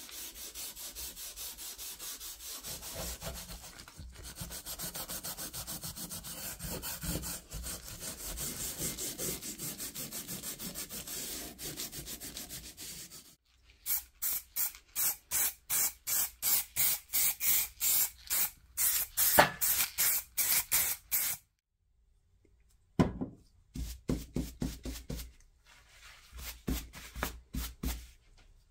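A sanding block rubbed back and forth by hand over cast iron and sheet-steel parts, first in quick continuous strokes. After a short break the strokes come louder and more spaced, about three a second. After a pause near the end come a few shorter, irregular strokes.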